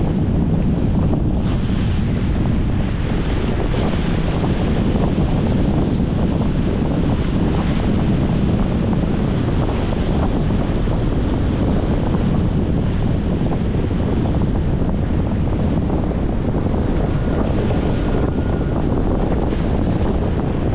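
Strong wind buffeting the microphone, a steady low rumble, over choppy lake water splashing against a concrete shoreline.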